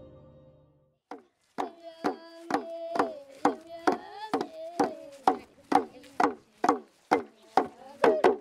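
Soft ambient music fading out, then after a short silence a steady beat of sharp strikes about twice a second under a held, slightly wavering pitched tone.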